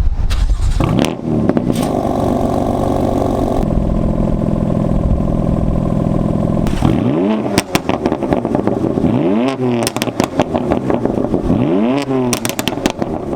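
BMW F80 M3's twin-turbo inline-six engine idling steadily, then revved three times, each rev rising and falling back, with sharp cracks among the revs.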